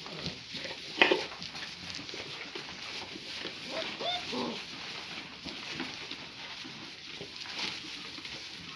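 Great Pyrenees puppies yelping and whining as they play: one sharp yelp about a second in, then a few short whines that rise and fall around four seconds, over faint scuffling in straw bedding.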